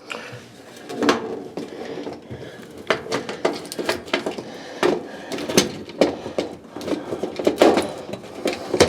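Irregular plastic clicks, knocks and scrapes as a washing machine's lid-lock switch is worked loose by hand from under the machine's top.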